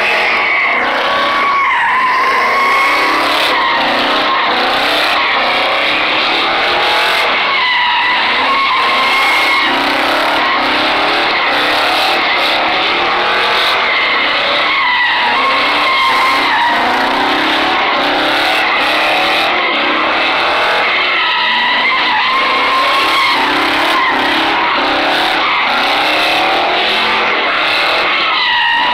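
Chevrolet Silverado pickup doing donuts: its tyres squeal in a continuous wavering screech over the engine, which revs up and down again and again.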